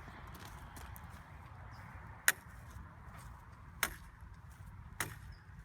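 Three sharp knocks, about a second and a half apart, over a steady low background rumble.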